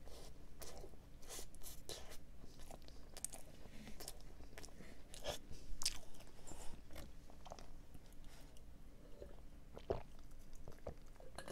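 Close-miked chewing of a Hershey chocolate chip cookie donut: irregular crunches and wet mouth clicks. About ten seconds in comes a sharper knock as a sip is taken from a glass mason-jar mug of iced drink.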